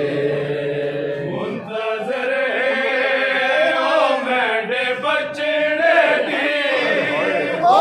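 A group of men chanting a noha, a Shia mourning lament, in unison, in long drawn-out phrases.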